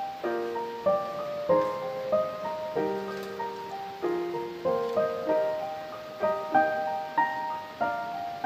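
Background piano music: a melody of single struck notes, each fading away, about two a second.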